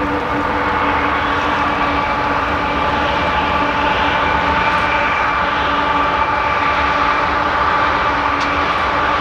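Union Pacific diesel freight locomotives running past, a steady engine drone with held whining tones over it.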